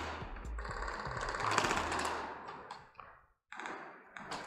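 Airsoft guns firing rapid full-auto bursts, a fast rattle of shots. It cuts out briefly about three seconds in, then resumes.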